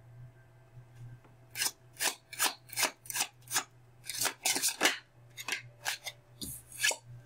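A deck of tarot cards being shuffled by hand: a run of about a dozen quick, papery swishes of cards sliding against each other, starting about a second and a half in and stopping shortly before the end.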